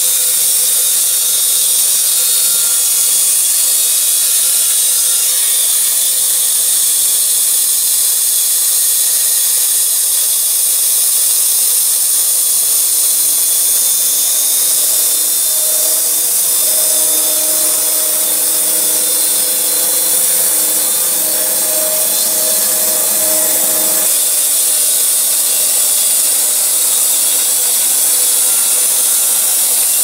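Electric band sawmill with a 15 kW motor, its band blade sawing lengthwise through a large log: a loud, steady, high-pitched sawing hiss.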